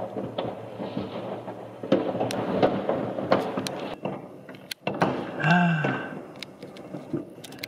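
New Year's Eve fireworks: a continuous rumble of distant bangs, with sharper cracks at irregular intervals, several of them in quick succession.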